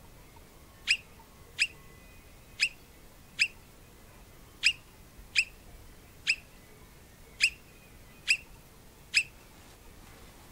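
Alpine marmot giving a series of ten short, shrill whistled alarm calls, roughly one a second. A repeated call series like this is the marmot's alarm for a predator on the ground.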